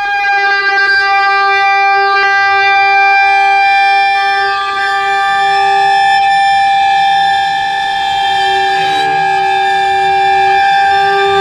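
Contemporary piece for electric guitar and string quartet: a Les Paul-style electric guitar and bowed strings hold long, steady tones, a high one and a lower one, with little change in pitch. A rougher, grainier texture joins in about halfway through.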